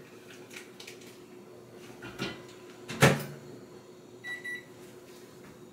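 Quiet kitchen handling with faint clicks over a low steady hum. A sharp knock comes about three seconds in, then two short high-pitched electronic beeps.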